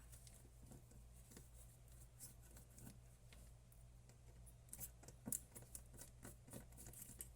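Near silence over a low steady hum, with faint small clicks of a precision screwdriver working the tiny Torx T4 screws on a Pebble Steel smartwatch's back; the clicks are sparse at first and come more often from about five seconds in.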